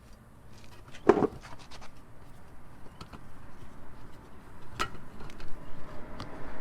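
Truck seat cushion being pried off its retaining clips: scratching and rubbing as it is worked loose by hand, with a sharp snap about a second in and another near five seconds.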